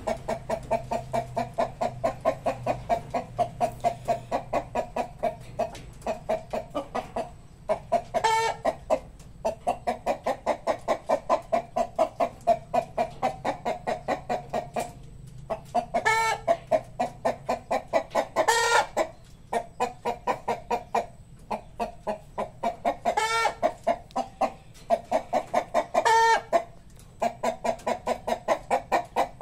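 Chickens clucking in long runs of rapid, evenly spaced clucks, about four a second, broken every few seconds by a louder, higher call.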